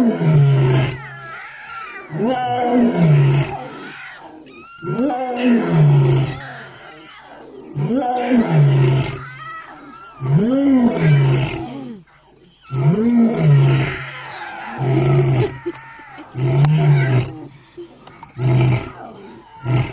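Lions roaring: a long series of loud roars about two to three seconds apart, each rising and then falling in pitch.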